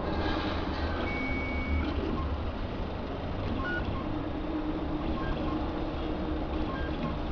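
Automatic soldering machine running with a steady low mechanical hum and noise, with a few faint short tones, the longest about a second in.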